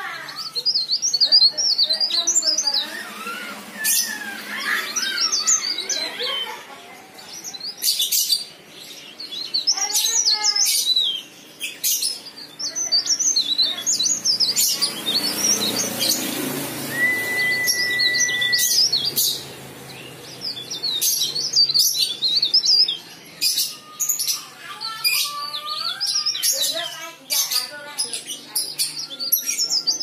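Caged cikrak daun (mountain leaf warbler) singing persistently in rapid, high twittering phrases, one after another, with sharp clicks between them. Just past halfway a single steady whistle is held for about two seconds.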